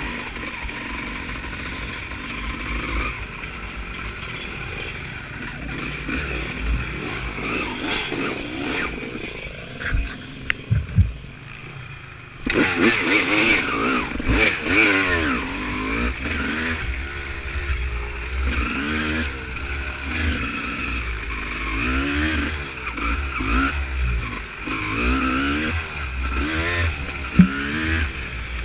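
Off-road motorcycle engine being ridden, running steadily at first with a few knocks about ten seconds in. About twelve seconds in it suddenly gets louder and then revs up and down over and over.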